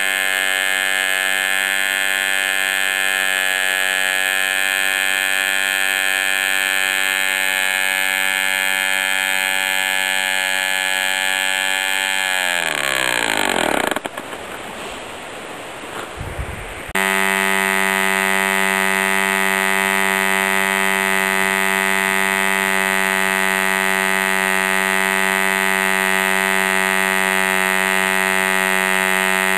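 Vintage Russian MK17 1.49 cc model aircraft diesel engine running at a steady high speed with a steady, buzzy drone. About twelve seconds in it is shut off by hand and winds down to a stop over about two seconds, its pitch falling away. After a few seconds of quieter noise, a model diesel engine's steady drone cuts back in abruptly.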